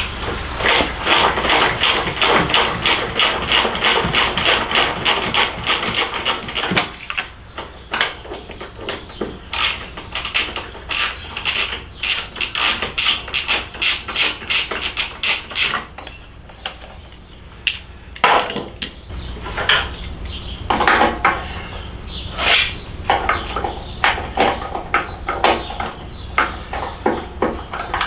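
Hand socket ratchet with a 6 mm hex bit clicking in rapid runs with short pauses while motorcycle bolts are backed out.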